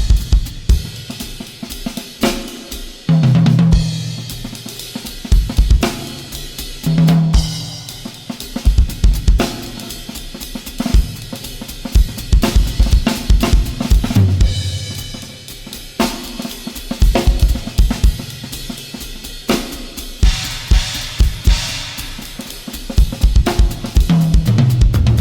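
Music played on a drum kit: busy, irregular snare and bass drum hits with cymbals and hi-hat ringing over them.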